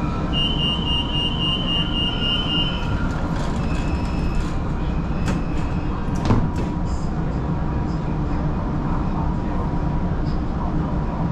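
A metro train's door-closing warning: a rapid run of high beeps, then the doors sliding shut, with clicks and one sharp thump about six seconds in. A steady low hum of the stopped train runs underneath.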